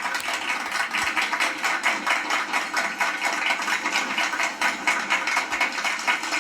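Cartoon machine sound effect: a fast, even mechanical clatter of about eight ticks a second, running steadily.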